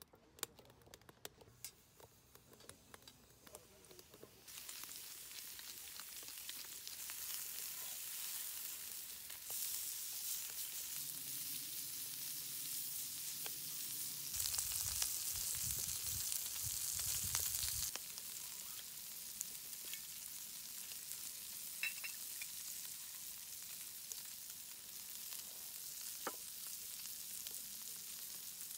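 Strips of fatty pork sizzling on a ridged grill pan over a rocket stove fire. The sizzle starts suddenly about four seconds in, grows louder, then drops back to a steadier, softer sizzle about two-thirds of the way through.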